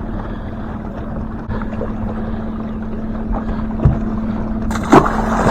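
Boat motor running with a steady hum, with wind noise on the microphone and a sharp knock about five seconds in.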